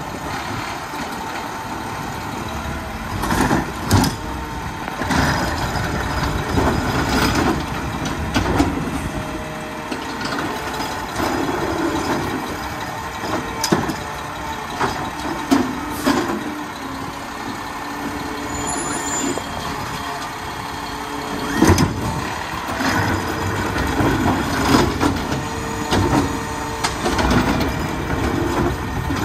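Mack LR garbage truck with a McNeilus ZR automated side-loader arm at work. The engine and hydraulics run steadily while the arm grabs, lifts and empties wheeled trash carts, with sharp clanks and bangs of cart and arm against the hopper every few seconds.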